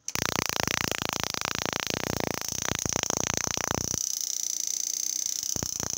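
Varteg Plasma 40 plasma cutter's high-voltage oscillator spark gap crackling with rapid sparks over a steady high-pitched whine. About four seconds in the sparking stops and the whine carries on. The spark gap firing as soon as the machine is switched on is the machine's fault.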